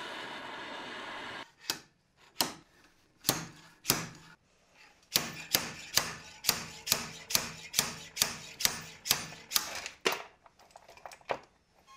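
Butane torch hissing steadily, then cutting off about a second and a half in. It is followed by a series of sharp metal taps, about two a second through the middle, from hammering the torch-heated pinion and bearing plate off an electric drill motor's armature shaft.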